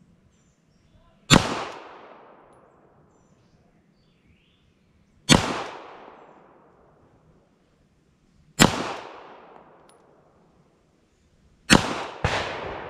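SIG Sauer P226 MK25 9 mm pistol fired in slow, deliberate single shots: four shots a few seconds apart, then two close together near the end. Each sharp report trails off over about a second of echo.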